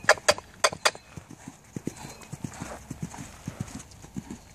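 Horse cantering on a sand arena: a steady run of soft, dull hoofbeats in the canter's rolling rhythm. A few short, sharp sounds come in the first second.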